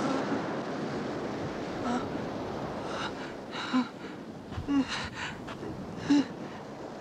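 A wounded man gasping and grunting in pain in several short breaths, over a steady rush of surf.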